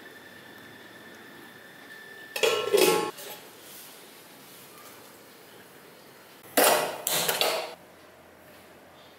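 Metal spoon scraping and clinking against a steel bowl while green masala paste is mixed into chicken pieces, in two bursts: about two and a half seconds in and again near seven seconds.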